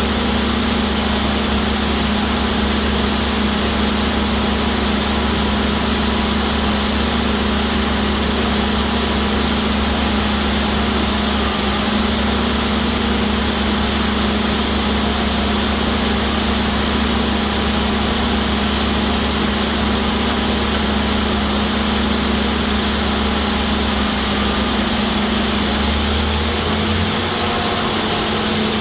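A JD1400 hydraulic drill rig running steadily while drilling straight down, its engine and hydraulics making a continuous loud drone. Near the end the low hum shifts in pitch.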